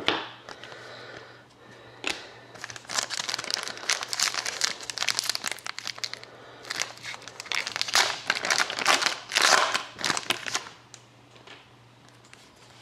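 A trading-card pack wrapper crinkling as it is torn open and handled, in irregular bursts that ease off near the end.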